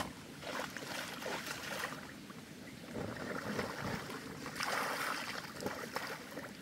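Water splashing and sloshing in irregular bursts, swelling loudest a little past the middle.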